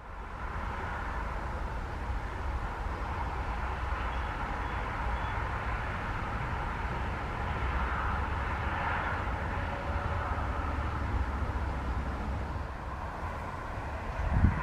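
Distant jet engines of a Boeing 737 MAX on approach, a steady whine, under a heavy low rumble of wind buffeting the microphone. A brief louder thump comes from the wind just before the end.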